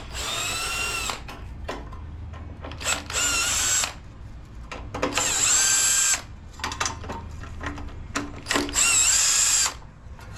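Cordless power driver whirring in four short runs of about a second each, each rising in pitch and falling away, with small clicks of tool and part handling in between: fasteners being run out to take a small engine's carburetor off.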